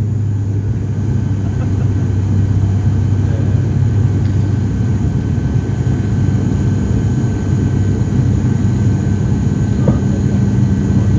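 Cabin drone of an ATR 72-600 turboprop in flight: the Pratt & Whitney PW127M engines and six-blade propellers run at steady power, giving a deep, even hum with a fainter higher whine above it.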